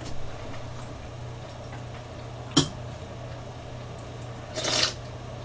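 Close-up eating sounds of someone eating from a small bowl with chopsticks: one sharp click about halfway through and a short noisy burst near the end, over a steady low electrical hum.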